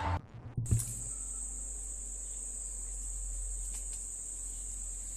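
A steady high-pitched whine over a low hum, starting abruptly after a click about half a second in.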